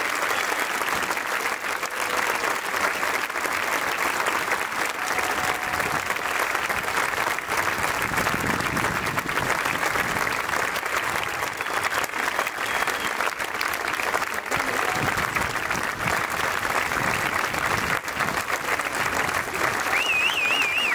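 Large theatre audience applauding steadily, a dense, even clatter of many hands clapping.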